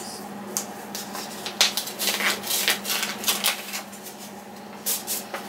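Paper envelope and cards being handled: rustling and crinkling in quick short crackles, busiest from about a second and a half to three and a half seconds in, with a few more near the end.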